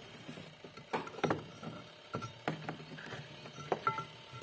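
Irregular light clicks and knocks as the rubber drive belt is worked off the washing machine's wash motor pulley by hand.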